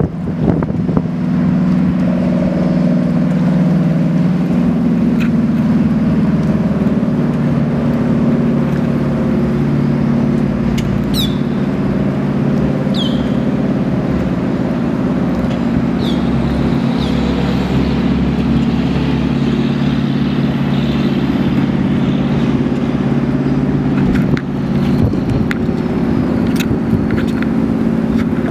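Large sportfishing yacht's inboard engines running with a steady low drone as it cruises past. A few short falling chirps, like a bird's, come about midway.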